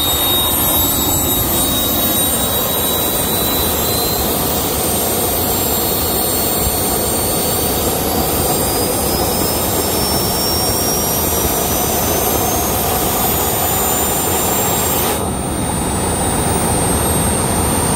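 Three small jet engines running together: a loud, steady jet roar with a high turbine whine that climbs slowly in pitch as the engines wind up in speed toward full throttle. About fifteen seconds in, the highest part of the sound briefly drops away.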